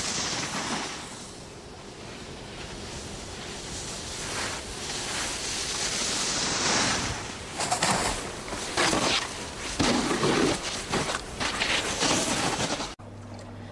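A snowboard hissing and scraping over snow with wind noise, turning into a run of louder, irregular scrapes and knocks in the second half.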